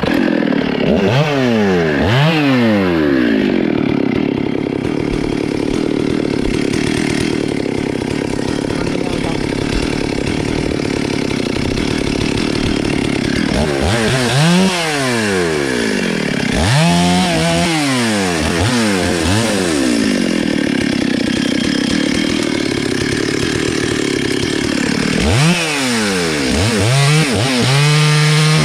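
Stihl MS 382 two-stroke chainsaw running at full throttle while cutting into a tree trunk. The engine note drops and climbs back several times as the throttle is eased and reopened, near the start, around the middle and near the end.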